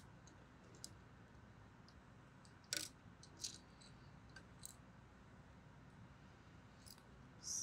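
Near silence broken by a few faint, sharp clicks of small metal parts, screws and a metal mounting plate, being handled and fitted together. The loudest click comes a little under three seconds in.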